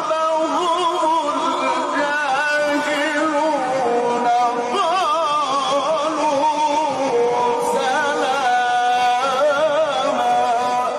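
A male Quran reciter chanting in the melodic Egyptian mujawwad style. He draws out long, ornamented notes that waver up and down, with scarcely a break.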